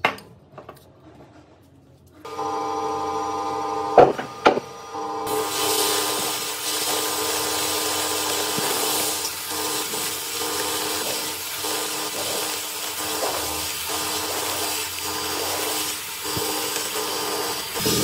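Sandblasting in a blast cabinet: a steady hiss of abrasive from the blast gun stripping rust off a vise part. Under it runs a steady machine hum that starts about two seconds in, and two sharp clicks come just before the blast begins.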